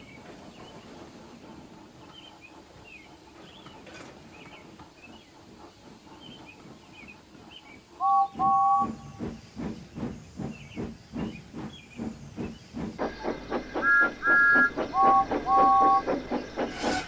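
Faint birdsong over quiet ambience, then a steam locomotive whistle gives two short toots and the engine starts chuffing steadily. After a change of scene the chuffing is louder, with a higher-pitched pair of whistle toots followed by a lower pair.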